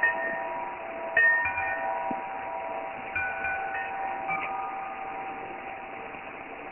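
Wind chime's tubes knocked together by the wind, with a few clusters of strikes in the first two-thirds, each leaving several clear ringing tones that slowly die away toward the end.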